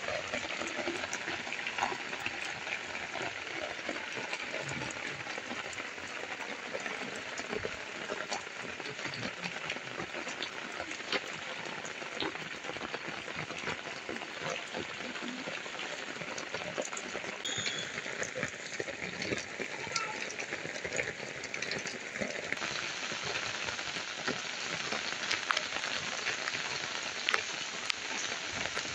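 Heavy rain falling steadily: a dense, even hiss with many sharp taps of drops striking hard wet ground and brick walls.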